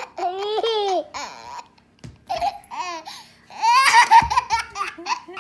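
A young child laughing and babbling in high-pitched bursts, with short gaps between them.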